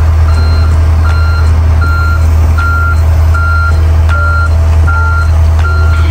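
Backup alarm on heavy equipment beeping steadily, one single-pitched beep about every three-quarters of a second, over the loud, steady low drone of the machine's engine running.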